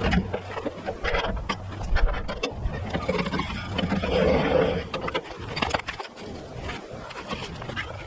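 Irregular scraping and knocking of wood, with a louder, longer scrape around the middle.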